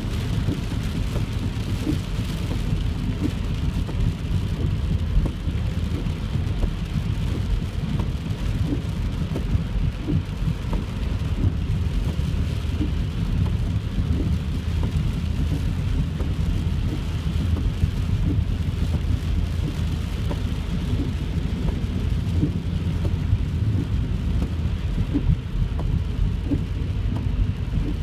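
Heavy rain falling on a car's roof and windshield, heard from inside the cabin while driving, mixed with a steady low rumble of road and tyre noise on the wet freeway. Many small raindrop ticks are scattered over the hiss.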